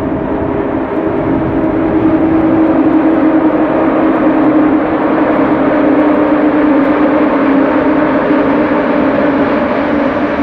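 Freight train hauled by two EU07 electric locomotives running past: a loud, steady rumble with a steady hum over it.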